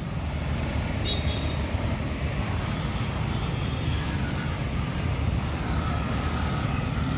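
Steady road traffic noise: a continuous rumble from cars and motor scooters passing on the road.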